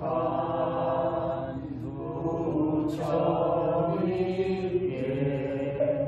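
A group of voices chanting a Korean Buddhist chant together. It comes in two long sung phrases, with a short break for breath about three seconds in.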